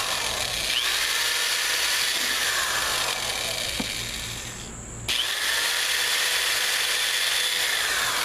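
Power drill running while it bores pilot holes through a plastic fan shroud. It stops briefly near the middle and then starts again.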